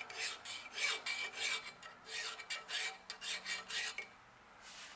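Hand file rasping across the edge of a model steam engine's flywheel casting in light finishing strokes, about three a second, stopping about four seconds in. The strokes blend the edge into a smooth, even line.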